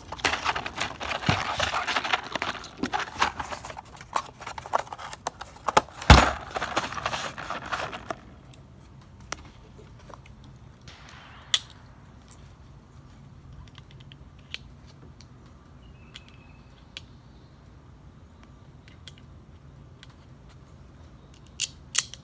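Metal cartridges rattling and clinking against each other as they are handled at a cardboard ammunition box, with one sharp knock about six seconds in. Then, quieter, scattered single metallic clicks as .357 Magnum rounds are loaded into a Colt Python revolver's cylinder, with two clicks close together near the end.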